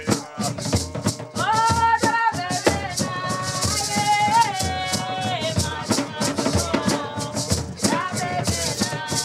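Music: voices singing a melody over hand drums and a shaker keeping a steady beat.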